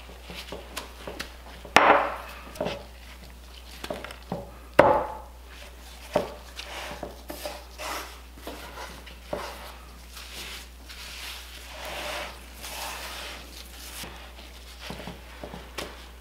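Hands in disposable gloves shaking dry BBQ rub from a glass jar onto a raw pork butt and rubbing and patting it into the meat on a wooden cutting board, with irregular rustling throughout. Sharp knocks about two and five seconds in are the loudest sounds.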